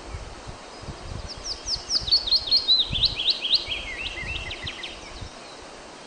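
A small songbird singing one phrase of about three and a half seconds: a quick run of sharp high notes that falls in pitch as it goes.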